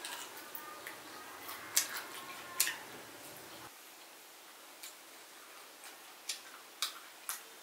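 Eating sounds from chewing pickled chicken feet: a scattering of sharp clicks and crunches, about six, unevenly spaced. The two loudest come about two and a half seconds in.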